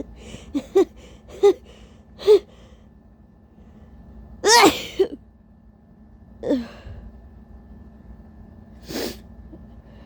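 A woman's tissue-induced sneeze: a breathy buildup of short, catching gasps over the first two and a half seconds, then one big uncovered sneeze about four and a half seconds in. A shorter falling voiced sound follows about two seconds later, and a breath comes near the end.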